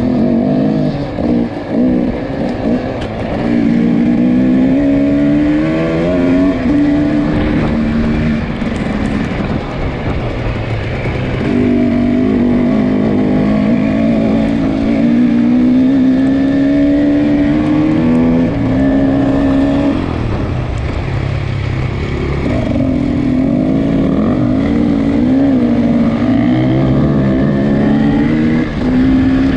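Off-road dirt bike engine revving up and down as it is ridden hard, its pitch climbing and falling with the throttle and gear changes.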